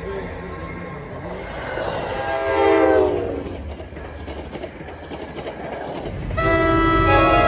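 A passing NJ Transit commuter train sounds its horn once as it approaches a grade crossing, and the horn drops in pitch as the train goes by. Under it are the rumble and clatter of the train's wheels. About six seconds in, a steady pitched tone starts and holds.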